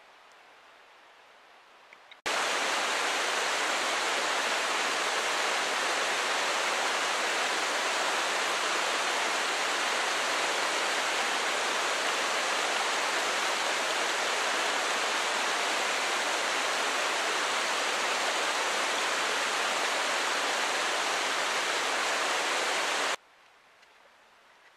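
Mountain creek cascading over boulders in a small waterfall: a steady rush of water. It starts abruptly about two seconds in and cuts off abruptly shortly before the end, with faint quiet on either side.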